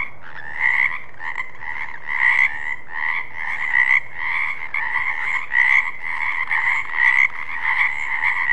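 Frogs croaking continuously, with louder croaks rising above the rest every second or so.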